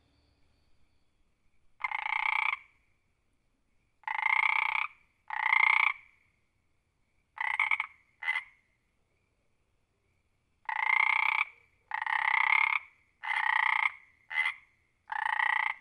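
Frog croaking: about ten separate croaks, most just under a second long and two of them very short, in loose groups with brief silences between.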